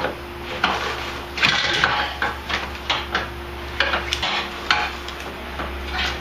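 Metal skid plate under a Jeep Grand Cherokee clanking and rattling against the underbody as its last loose bolts are worked free and it is pulled down, making irregular knocks and clinks.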